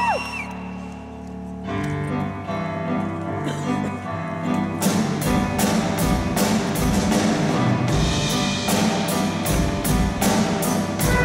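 Youth jazz big band of saxophones, brass and rhythm section playing: a quiet held low chord at first, then the full band comes in about two seconds in, and the drums settle into a steady beat about five seconds in.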